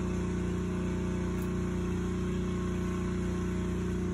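Steady mechanical hum of a running motor: an even low drone that holds the same pitch throughout.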